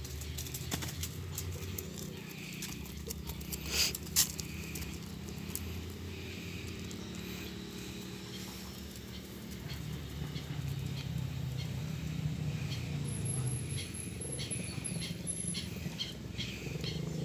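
Domestic cat purring steadily while being stroked, a low fluttering hum. A couple of sharp clicks sound about four seconds in.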